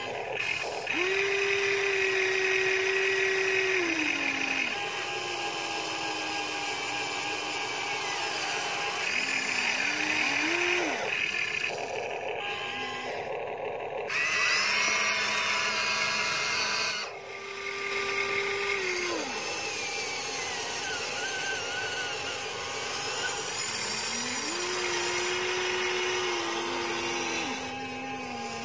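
Huina 1593 RC excavator's small electric motors whining as the arm and bucket dig soil. The whine comes in spells of a few seconds, each rising as it starts and holding a steady pitch before cutting off.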